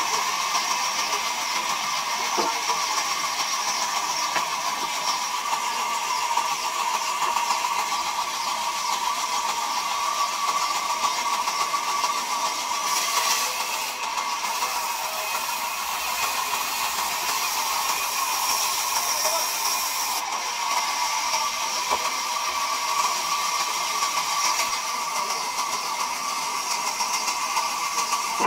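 Large sawmill band saw running and ripping a timber slab lengthwise: a steady high-pitched machine whine with hiss, which grows brighter for several seconds near the middle.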